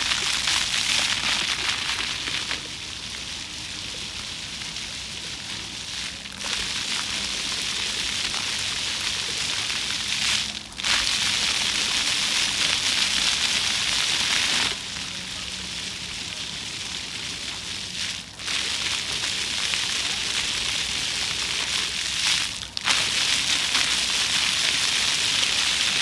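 Floor fountain: water jets shooting up from nozzles in the paving and splashing back onto the wet stone, a steady spattering hiss. It swells and falls back in steps every few seconds as the jet pattern changes, with brief dips about ten, eighteen and twenty-two seconds in.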